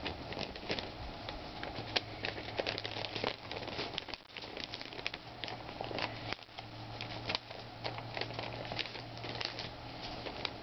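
A sheet of paper being handled and folded into a paper airplane, rustling and crinkling with many small crackles as the folds are creased.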